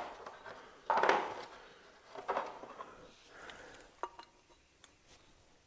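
A few light metallic clinks and short scrapes as brake hub parts and tools are handled by hand, in separate small bursts with sharp clicks near the end.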